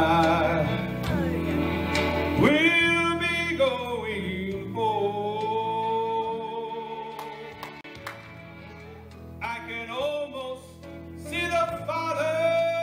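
A man singing a slow solo song into a microphone, sliding into long held notes, over instrumental accompaniment.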